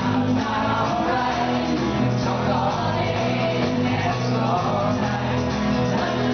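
Live band playing a song, with a woman singing lead over acoustic guitar and a steady bass line, and another voice joining in.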